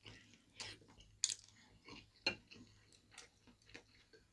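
Two people eating: soft chewing with a few scattered light clicks of spoon and chopsticks against ceramic bowls.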